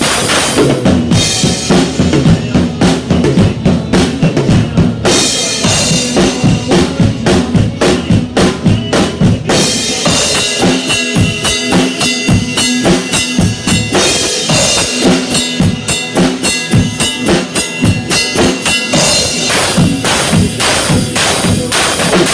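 Band music with a drum kit keeping a steady beat on bass drum and snare, without singing.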